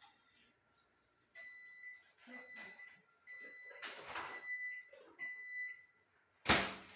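Microwave oven beeping in several long tones at the end of its timed run, with some handling noise, then a loud sharp clack near the end.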